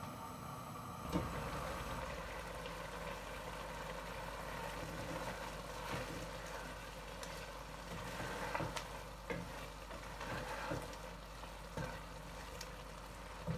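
Minced meat (keema) sizzling in a pan as a wooden spoon stirs it, with a few light knocks of the spoon against the pan.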